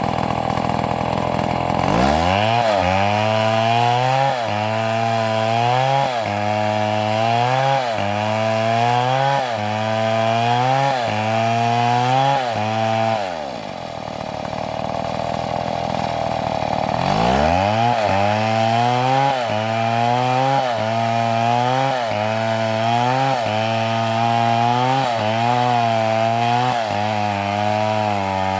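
Two-stroke chainsaw cutting into wood under load. It revs high and steady, then its engine note drops as it bites into the cut and wavers up and down about once a second. Around the middle it eases off, revs back up freely, and drops into the cut again.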